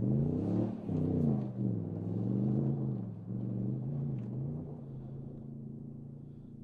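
Toyota Tundra TRD Pro pickup's 5.7-litre V8 revving hard off-road, its pitch rising and falling a couple of times early on, then holding steadier and fading as the truck pulls away.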